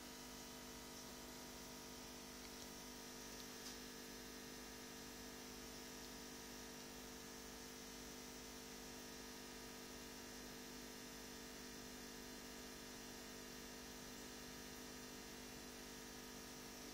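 Faint steady electrical mains hum, several fixed tones with a thin hiss above, unchanging throughout; a tiny tick a little over three and a half seconds in.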